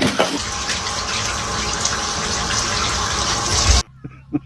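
Steady rush of running water that cuts off abruptly near the end.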